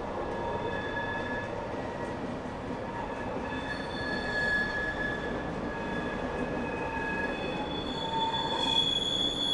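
Railway wheels squealing against the rails as a train passes: several high, steady squeal tones come and go over the rumble of the wagons, loudest near the end.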